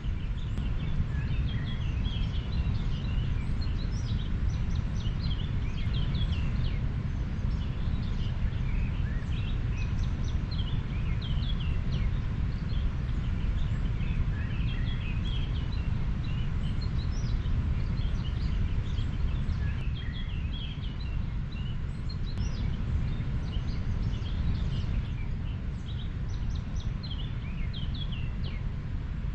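River water running with a steady low rush, with many birds chirping throughout.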